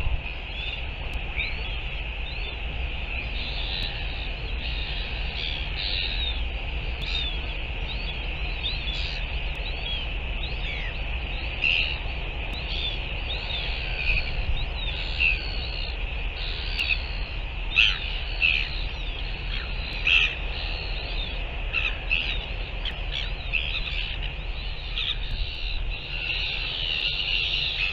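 A busy seabird colony: many birds calling over one another in short, chattering, squawking calls, over a steady low rumble.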